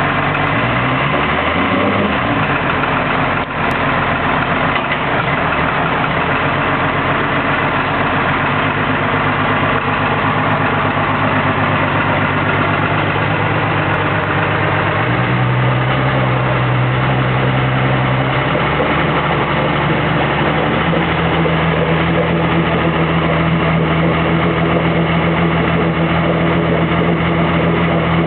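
Outboard engine running on a water-brake dynamometer at low speed. Its pitch rises and falls briefly near the start, then steps up about halfway through and again a few seconds later as the engine speed is raised.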